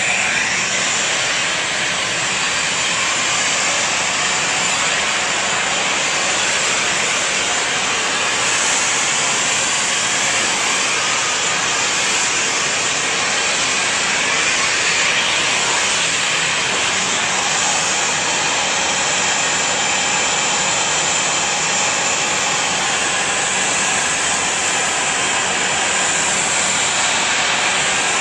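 Jet airliner engines running, a loud steady rush with a faint high whine on top.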